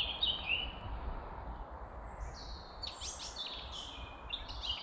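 Songbirds singing in woodland: a run of short chirps and stepped whistled phrases, busiest in the second half, over a low steady rumble.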